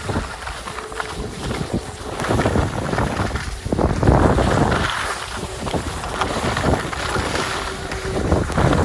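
Wind buffeting the microphone during a downhill ski run, with skis hissing over the snow in surges that swell and fade; the loudest swell comes about four seconds in.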